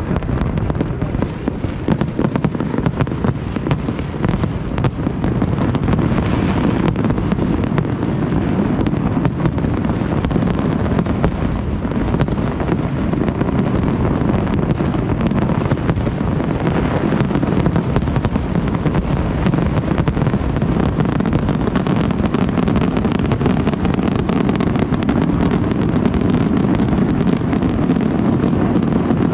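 A large fireworks display going off as a continuous barrage: many overlapping booms and crackles with no pause.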